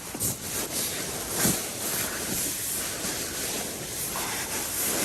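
Steady rain and gusting wind on a tent, an even hiss, with a few brief rustles of handling.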